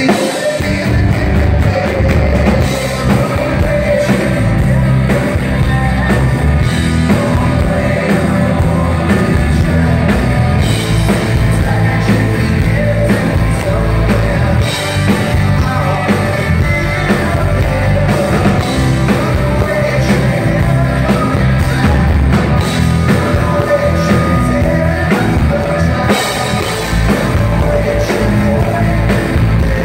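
Rock band playing live: singing over acoustic guitar, electric guitar, bass and drums, played loud and continuously.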